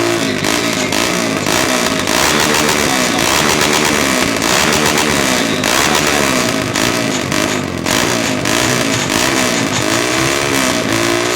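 Honda CB 300's single-cylinder engine revved again and again through a straight pipe with no muffler, loud, each rev climbing and dropping back about once a second.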